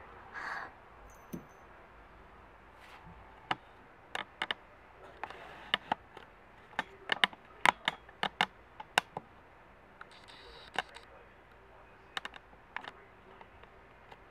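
A small padlock and key being handled, giving scattered, irregular sharp clicks and light metallic clinks, most of them in the middle few seconds.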